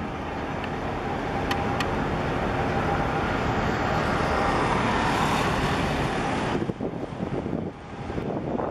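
Steady rushing noise like road traffic going by, over a low wind rumble on the microphone. The higher rushing cuts off abruptly about two-thirds of the way through, leaving the gusty rumble.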